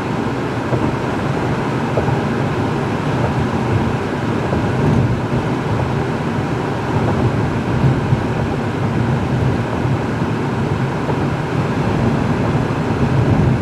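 Steady road and engine noise of a car being driven on a highway, heard from inside the car, with no sudden events.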